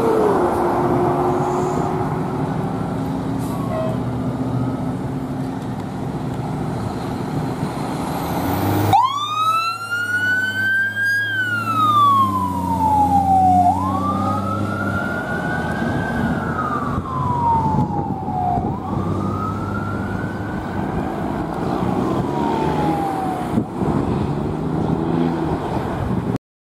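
A 2007 Pierce Quantum fire engine's diesel engine running as the truck passes on the road. About nine seconds in, its siren starts and wails: a quick rise, then a slow fall, repeating about every five seconds and getting fainter as the truck moves away.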